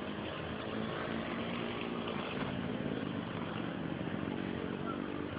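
A vehicle engine running steadily, its pitch wavering slightly.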